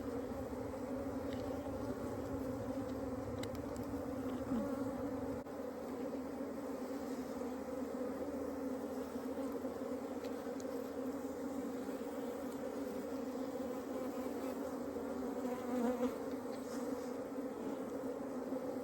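Many honeybees buzzing in a steady, continuous hum. A low rumble underneath stops about five seconds in.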